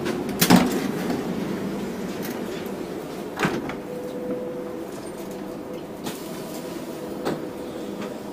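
Interior sliding door of a passenger train coach clunking about half a second in, over the steady hum of the carriage, with two more knocks later on. A faint steady tone comes in partway through.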